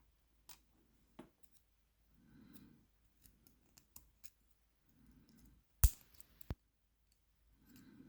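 Small metallic clicks and taps of tweezers handling the tiny levers of a small lever lock as they are lifted out, with a sharper double click just before six seconds in and faint soft handling sounds between.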